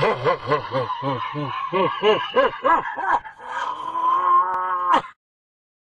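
A deep man's laugh, a quick run of 'ha' syllables about three or four a second, then one long held cry rising a little in pitch that cuts off suddenly about five seconds in.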